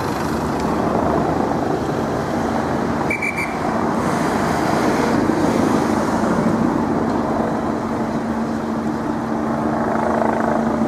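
Police motorcycle engines running amid steady road traffic noise, with a steady low hum coming in about halfway and a brief high beep about three seconds in.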